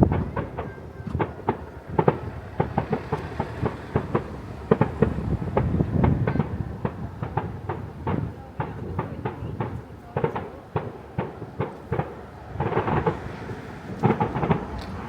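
Fireworks display: a rapid, uneven series of bangs and crackles over a low booming rumble, with thicker bursts of crackling near the end.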